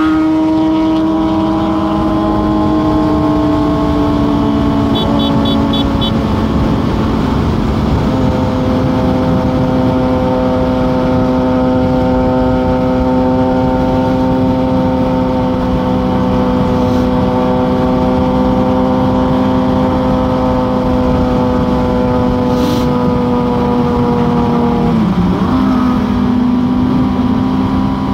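Suzuki GSX-S750's inline-four engine cruising under steady throttle, its pitch holding nearly level with a slow drift and a brief dip and recovery near the end.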